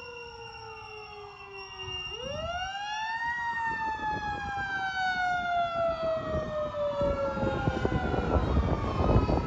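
Fire engine siren wailing: the pitch falls slowly, swings sharply back up about two seconds in, then slides slowly down again. A rumble of truck engine and road noise grows louder underneath.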